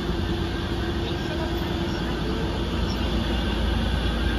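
Hiroshima Electric Railway streetcar rolling past close by: a steady rumble of its wheels on the rails, with a low hum that fades about halfway through as it moves away.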